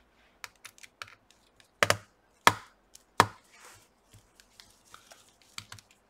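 Small clicks and taps of a precision screwdriver working the tiny screws that hold a laptop's heatsink, with three louder sharp clicks about two-thirds of a second apart in the middle.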